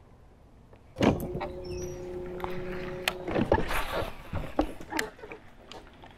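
A small electric motor starts suddenly about a second in and whirs at a steady pitch for about two seconds, then stops; scattered knocks and clicks follow.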